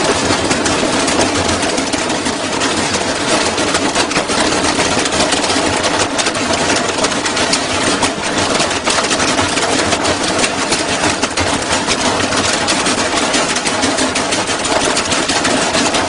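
Front-loading washing machine shaking violently in an unbalanced high-speed spin, its door flapping loose, making a loud continuous clatter of rapid knocks and rattling.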